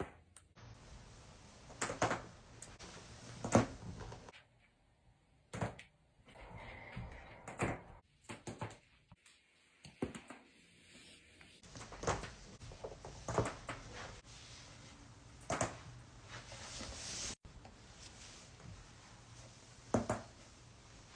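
Back joints cracking during chiropractic adjustments: a series of sharp pops at irregular intervals, the loudest about three and a half seconds in.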